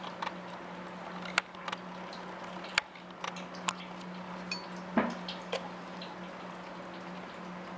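Home-built gamma-type Stirling engine with a yoke drive running, its mechanism giving irregular light clicks and ticks over a steady low hum, with the loudest click about five seconds in.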